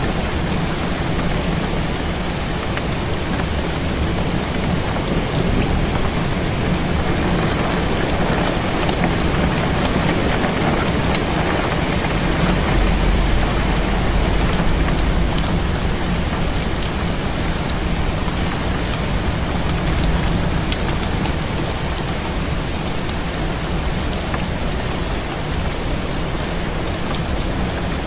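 Heavy rain falling steadily on a window, with a low rumble of thunder about halfway through.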